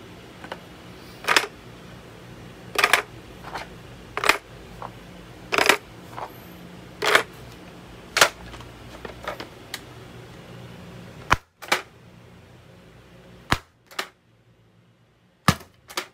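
40 mm airsoft gas grenade shells knocked one after another into the six chambers of an MGL grenade launcher's cylinder, a sharp clack about every second and a half. Then, from about eleven seconds in, the launcher fires: three pairs of sharp gas cracks a couple of seconds apart.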